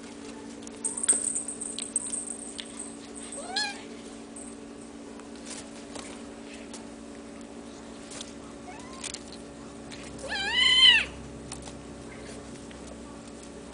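Hairless Bambino Sphynx kittens meowing while they play-fight. A short rising meow comes about three and a half seconds in, and a louder, longer meow that rises and falls comes about ten seconds in, with light scuffling and rustling in between.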